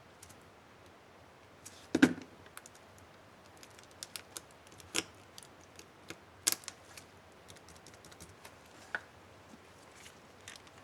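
Small plastic clicks and snaps from a laptop keycap being fitted onto its hinge clip and pressed on an HP DV4-1000 keyboard, one loud snap about two seconds in and a few sharp clicks after.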